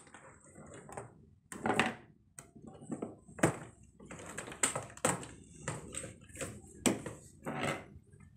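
Computer keyboard keys clicking and clattering as they are prodded and pried at with a hand tool: about a dozen irregular sharp plastic clicks and taps, with quieter handling noise between.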